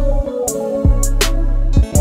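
Background music with a steady beat: held bass notes under sharp drum and cymbal hits.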